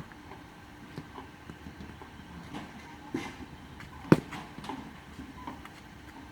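A single sharp knock about four seconds in, a baseball impact in a batting cage, with a few fainter knocks before it.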